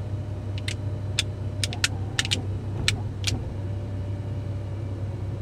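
Cummins diesel pickup engine idling, heard from inside the cab, with a faint steady whine as the truck's hidden remote-controlled wheel lift extends. About eight sharp clicks in the first three seconds or so.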